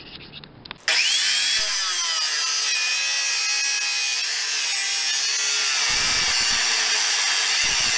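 Power chop saw cutting through a metal bracket, sparks flying. A loud, steady, high-pitched grinding whine with wavering tones starts suddenly about a second in. The blade is struggling to get through the flat part of the bracket.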